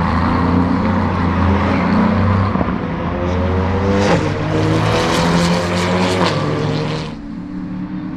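GT3 race car engines running at full throttle, one rising in pitch as it accelerates and comes past close and loud. The sound cuts off suddenly about seven seconds in, leaving a quieter engine note.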